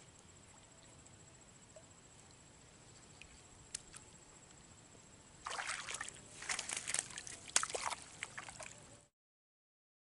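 Shallow water sloshing and splashing in a series of short bursts as hands work in it at the water's edge, starting about halfway through. The sound cuts off suddenly shortly before the end.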